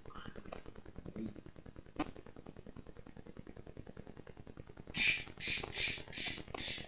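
Broom head shaken back and forth in the air, its bristles swishing five times in quick succession near the end. A single sharp knock about two seconds in.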